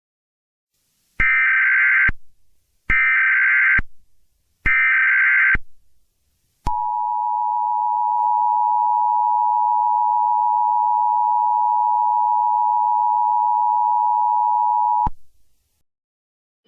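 Emergency Alert System tones. Three bursts of the digital SAME header come first, each about a second long. Then the two-tone attention signal holds steady for about eight seconds and cuts off abruptly. Together they mark the start of a new emergency alert broadcast.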